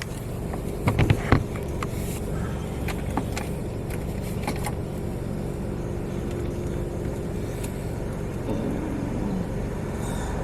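A car's engine idling steadily, a low continuous rumble, with several sharp clicks and knocks about a second in and a few more a couple of seconds later.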